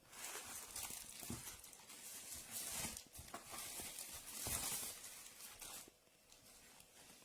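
Faint rustling and handling noises with a few light knocks, dying away about six seconds in.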